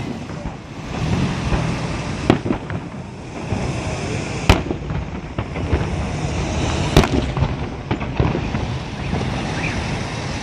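Holiday fireworks salute, shells bursting in sharp bangs. The loudest come about four and a half and seven seconds in, over continuous noise.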